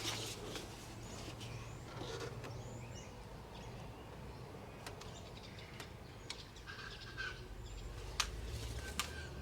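Faint bird calls in the background over a low steady hum, with scattered light ticks and two sharper clicks near the end.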